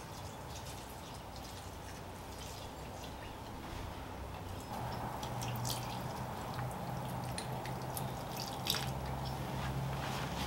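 Water pouring from a plastic watering can into a potted plant's soil, starting about halfway through, with dripping and small splashes.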